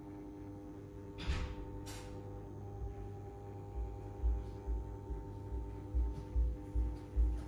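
Background music: held synth chords with a soft, regular low beat that comes in about halfway, and two short hissing swishes just over a second in.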